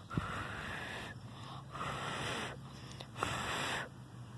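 A person blowing three puffs of breath, each a breathy rush of air lasting about a second.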